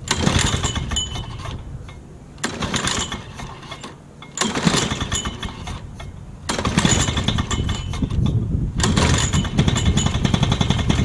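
Lawn-Boy two-stroke mower engine being started cold on choke: it fires in a run of short rapid-popping bursts, each dying away after a second or two, a new one about every two seconds, then keeps going more steadily in the last few seconds.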